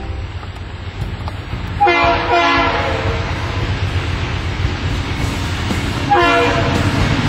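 Freight diesel locomotive's multi-note air horn sounding twice: a longer blast about two seconds in and a short one near the end. A steady low rumble from the approaching intermodal train runs underneath.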